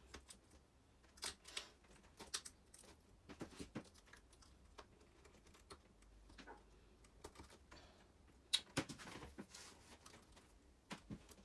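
Scattered light clicks and taps of small plastic and metal RC suspension parts and screws being handled and fitted, with a sharper click about eight and a half seconds in.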